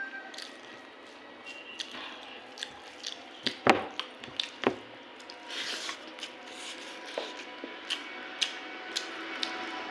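Close-miked mukbang eating sounds: wet squelching and smacking clicks of rice and curry being eaten and chewed, with two louder clicks about three and a half and four and a half seconds in.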